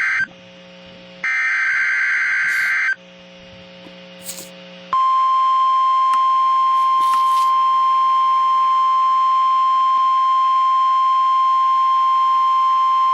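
NOAA Weather Radio emergency alert header: a burst of warbling digital SAME data tones cuts off just after the start, and a second burst runs from about one to three seconds in. After a two-second pause the steady 1050 Hz warning alarm tone starts about five seconds in and holds, announcing a tornado watch.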